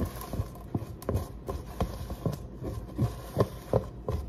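Silicone spatula scraping and knocking against the inside of a plastic tub as leftover batter is scraped out, in irregular knocks about two or three a second.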